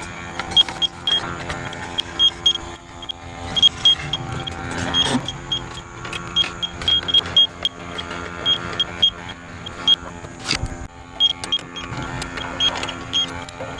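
Electronic refrigerant leak detector ticking with short, high beeps at an uneven pace as it is worked inside the unit's evaporator section, over a steady mechanical hum.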